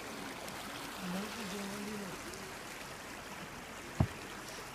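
Small stream running steadily over a shallow bed, a continuous rush of water. A single sharp knock about four seconds in.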